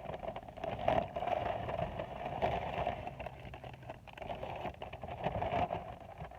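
Steady background noise heard from inside a car, with scattered small clicks and knocks.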